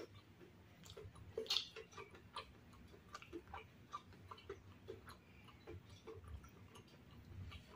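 Faint eating sounds: a person chewing crispy fried tofu meatballs (tahu bakso) with rice, heard as soft, irregular clicks, a slightly louder one about a second and a half in.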